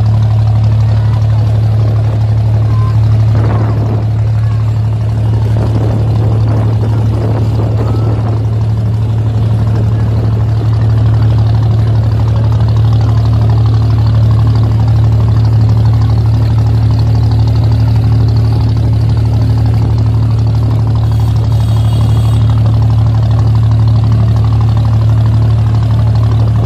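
Abra's inboard diesel engine running at a steady low drone, heard from on board, with water churning in the boat's wake.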